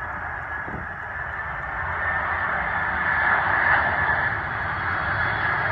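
Boeing 767-300F freighter's twin turbofan engines on final approach: a steady jet roar with a thin high whine, growing louder as the aircraft comes nearer.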